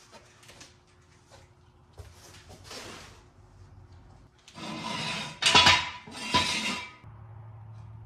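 Metal clatter: a steel jack stand being pulled from under a car and handled on a concrete floor, scraping with sharp clanks and a ringing note, loudest about five to six and a half seconds in, after softer rustling and scuffing. A low steady hum comes in near the end.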